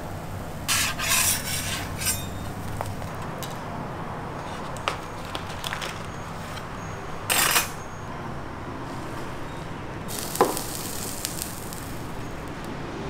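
Metal scraper scraping and tapping on a crepe griddle while a crispy lace crepe is folded and lifted: a few short scrapes, with a sharp click about ten seconds in, over a steady low hum.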